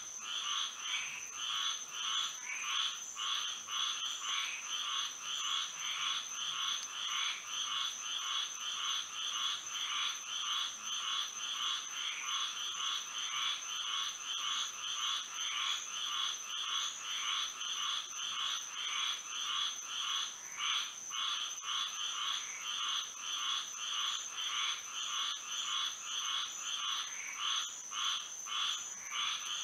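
Night chorus of many frogs calling together: a dense, rhythmic pulsing of overlapping calls, with a steady high-pitched tone above it.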